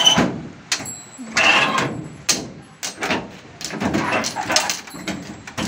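Hinged flap doors of a painted metal kitchen rack being lifted, slid and shut by hand, giving several sharp metal clacks and scraping sounds.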